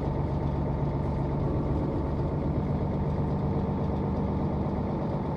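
Bus engine running steadily with a low, even hum and no change in speed.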